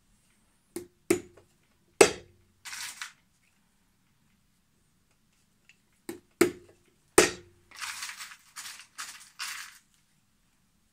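Small hammer tapping hobnails into the leather sole of a boot: two groups of three sharp metal-on-metal strikes with a short ring. Each group is followed by a second or two of scratchy rustling.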